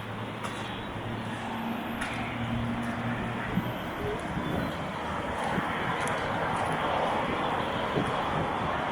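Steady outdoor background noise with a low engine hum that stops about three and a half seconds in; the noise grows louder toward the end.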